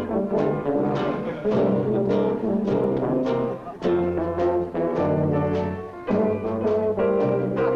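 Brass band of tubas, sousaphone and euphonium playing a slow tune in held low chords, over a steady drum beat of about two strikes a second.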